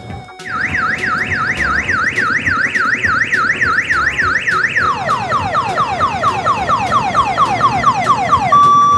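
Electronic siren wailing, rising and falling about four times a second. About halfway through it switches to a quick repeated falling whoop, then stops shortly before the end. A low rumble runs underneath.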